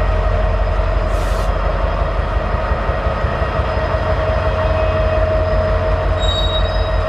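Rail cars rolling slowly through a working train yard, with a heavy low rumble and a steady metallic tone over it. A short hiss of air comes about a second in, and brief high squeals sound near the end.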